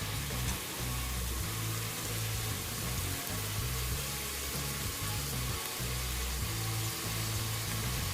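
A potato, black-eyed pea and onion mixture with spices sizzling steadily as it fries in oil in a pan, under background music with a low, shifting bass line.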